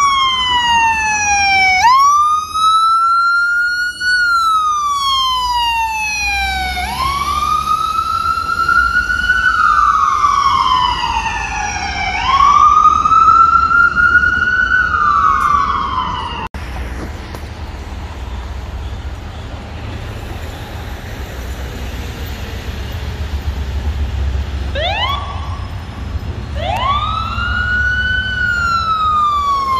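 Ambulance electronic sirens on wail, the pitch slowly rising and falling every few seconds. About halfway through it gives way to a low rumble of traffic. Near the end a couple of quick rising whoops come, and then the wail starts again.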